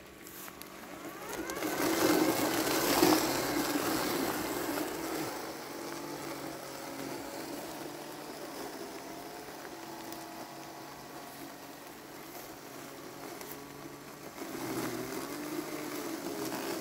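Landxcape 790 robotic lawn mower's brushless motors whining as it mows through tall wet weeds. The whine rises and grows louder about two seconds in, then settles to a steady hum and swells again near the end.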